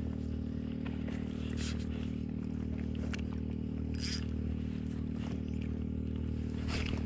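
Handling noise from an ultralight fishing rod, line and spinning reel: scattered scrapes and clicks, with a brief zip about four seconds in and another near the end. A steady low hum runs underneath.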